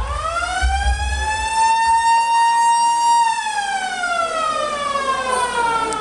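Siren sound effect over the sound system, opening the performer's backing track: a wailing tone that climbs for about two seconds, holds briefly, then slides slowly down.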